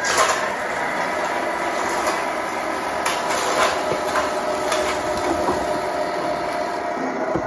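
The electric drivetrain of a 1/14 Tamiya Grand Hauler RC truck whines steadily as it pulls, with scattered clicks and clatter and a sharp knock just after the start.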